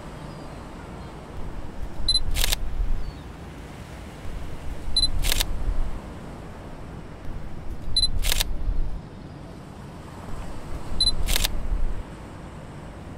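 Camera shutter sound effect, four times about three seconds apart. Each time there is a short rumble, a brief high beep and a sharp shutter click.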